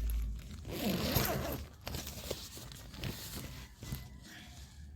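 Tent door zipper being pulled open, a rasping run of about a second, followed by quieter rustling and small clicks.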